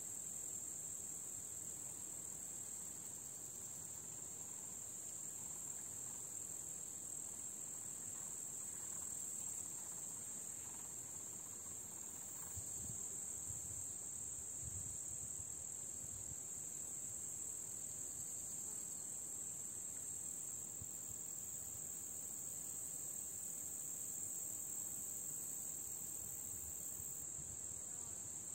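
Steady, high-pitched chirring chorus of meadow insects that never breaks, with a second, even higher insect joining in for several seconds past the middle. A few faint low rumbles around the middle.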